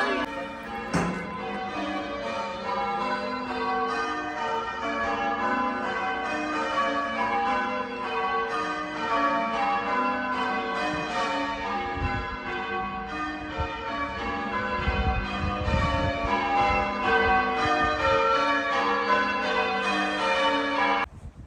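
Church bells pealing: several bells struck one after another in a quick, continuous sequence, their ringing tones overlapping. The ringing cuts off abruptly near the end.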